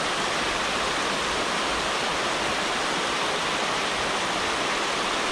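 Steady rush of river water spilling over a low concrete weir, at an even level throughout.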